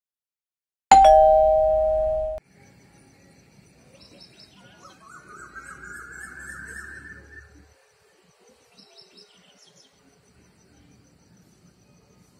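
A loud two-tone ding-dong chime, a higher note then a lower one, sounds about a second in and is cut off abruptly about a second and a half later. Then faint dawn ambience follows, with scattered bird chirps and a faint rising tone in the middle.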